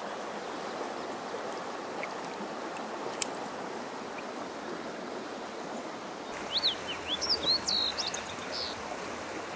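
Steady rush of a small creek running over rocks, with a bird giving a quick series of short chirps about six seconds in.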